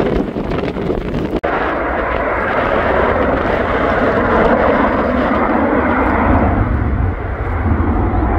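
Jet airliner engine noise, a steady dense roar that breaks off briefly about a second and a half in and then holds, with a deeper rumble building near the end. Wind buffets the microphone in the first moments.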